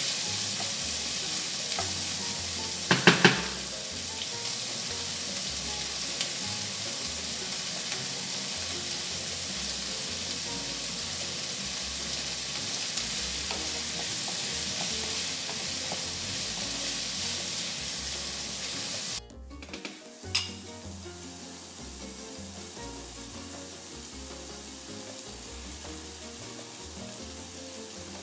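Diced bacon and mixed vegetables sizzling in a frying pan while being stirred with a wooden spatula, with a quick cluster of knocks of the spatula against the pan about three seconds in. About two-thirds of the way through the sizzle drops suddenly to a quieter, steady hiss as the stirring stops.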